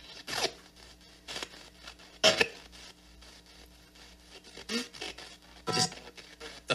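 PSB7 spirit box sweeping FM stations in reverse in silent mode, heard through a small speaker: short choppy bursts of broadcast fragments and static, roughly a second apart and irregular, over a steady low hum.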